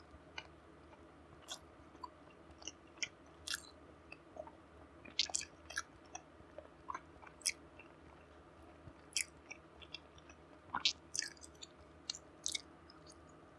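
Close-miked chewing of food, with irregular wet mouth clicks and smacks a few times a second, over a faint steady hum.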